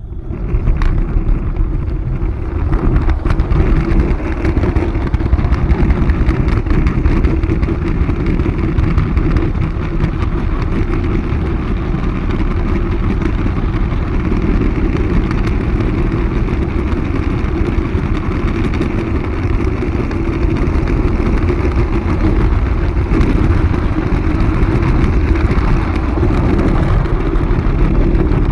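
Model train wheels rolling and rattling along 45 mm gauge garden railway track, heard from a camera riding on the train: a steady low hum and rumble with rapid small clicks over the rails. It starts suddenly as the train gets under way.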